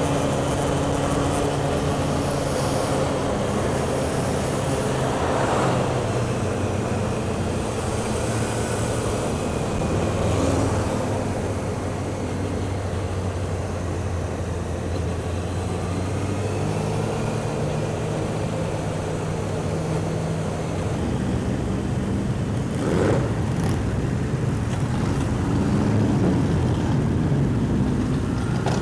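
Motorcycle engines running in a slow pack: the rider's own Honda CBR600F inline-four at low revs, with the other bikes close around it. The engine note stays steady, with small rises and falls in pitch, heard over a constant rush of noise on the helmet-mounted camera.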